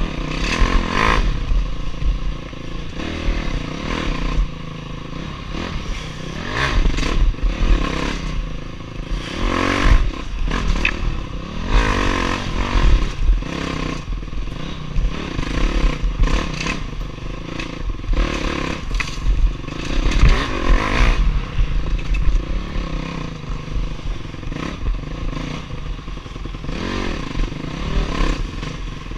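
Honda dirt bike engine revving up and down as it is ridden hard along a tight woodland trail, heard from a helmet-mounted camera. Brush scrapes past and the bike clatters over bumps.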